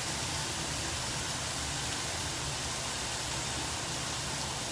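Food sizzling steadily in a frying pan on the stove, cooking on its second side.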